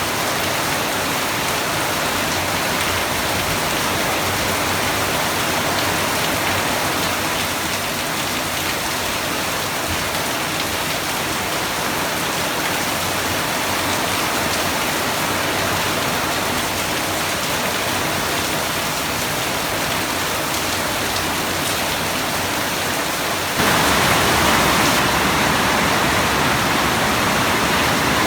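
Steady rain falling, a dense even hiss of drops on surfaces. Near the end it abruptly becomes louder and brighter.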